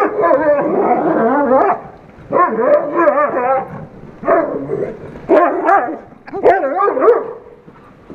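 A Weimaraner and a Great Dane play-fighting, giving play growls and barks in repeated bursts, each bending up and down in pitch, with short pauses between.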